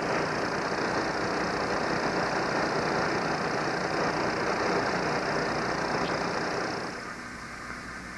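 Small engine of a suction dredge's pump running steadily, mixed with rushing water, until the level drops sharply about seven seconds in.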